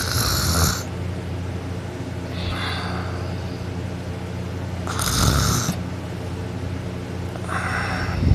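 A person snoring with mouth open: four noisy breaths about every two and a half seconds, the loudest about five seconds in, over a steady low hum.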